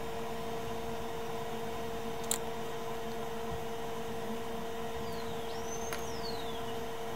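Steady humming of bench equipment running during microsoldering, with a single sharp click about two seconds in and a thin whistle that rises and then falls near the end.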